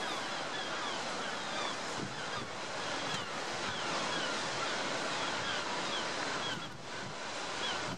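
Sea surf washing over a rocky shore, with wind. Over it, a stream of short, high, falling bird calls repeats several times a second.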